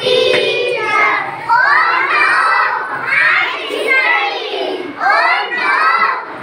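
A classroom of young children singing an English action rhyme together, loudly and in unison, in short phrases about a second apart.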